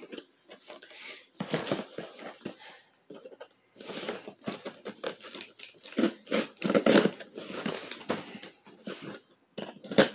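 Irregular rustling and crinkling of things being handled, in short bursts of uneven length.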